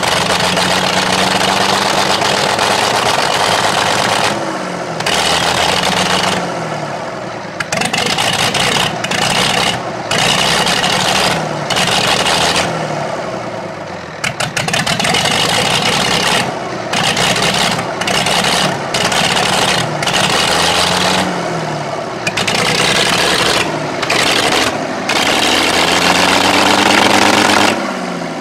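The diesel engine of an old UTB tractor runs rough just after a cold start and is revved again and again. Its pitch rises and falls in repeated swells, with short dips each time it drops back.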